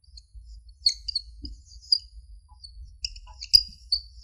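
Marker squeaking on a whiteboard in short, high, irregular strokes as characters are written, with a few faint low taps of the pen.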